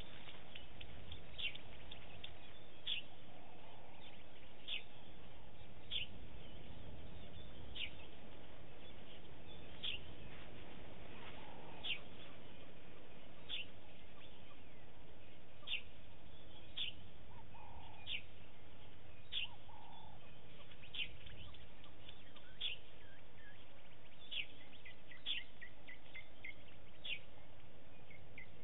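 Wild birds calling: one repeats a short, sharp, falling note every second or two, and near the end a faster run of quick repeated notes joins in. Under them is a steady low outdoor background noise.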